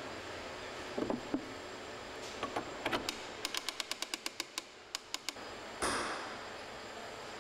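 Hand winch on a boat: a few knocks as the handle is fitted, then a quick even run of about a dozen ratchet clicks, about six a second, as it is cranked. A louder scrape follows about six seconds in.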